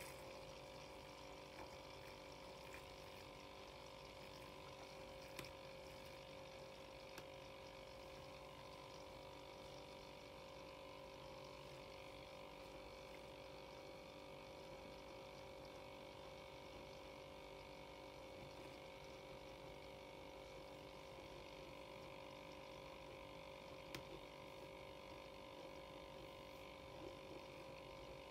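HadinEEon electric milk frother running with its non-frothing whisk, heating milk: a faint, steady motor hum with a few faint ticks.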